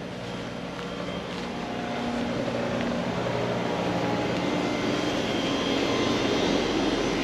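Bryant Evolution outdoor air-conditioning unit running in cooling mode during a refrigerant charge check: condenser fan rush over the compressor's steady hum, growing steadily louder.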